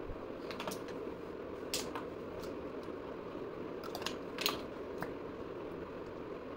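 A few small, sharp clicks and taps over a steady background hiss: a mascara tube and wand and a lipstick being handled while the makeup goes on.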